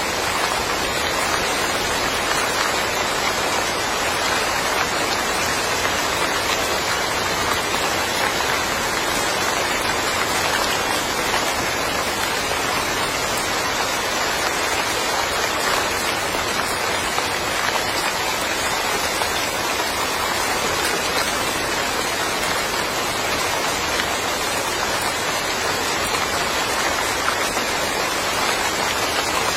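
Steady rain falling, a dense even hiss of drops with no distinct single drips standing out.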